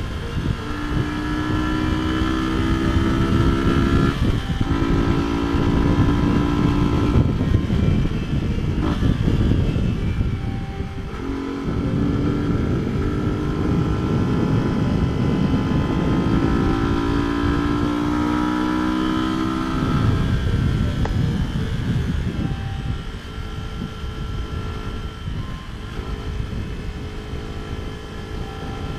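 Motorcycle engine pulling uphill, its pitch climbing and then dropping at each gear change, several times over, under a heavy rush of wind on the microphone. Near the end it eases off and gets quieter.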